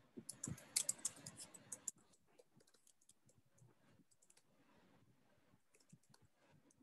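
Typing on a computer keyboard: a quick run of key clicks in the first two seconds, then fainter, scattered keystrokes.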